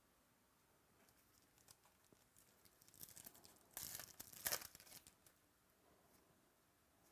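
A trading card pack wrapper torn open and crinkled by hand: soft scattered rustles, then a short run of crackling tearing sounds loudest in the middle that fades out about two seconds later.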